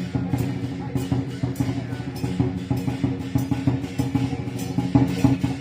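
Drum-led percussion music with fast, dense drum strokes over steady low tones.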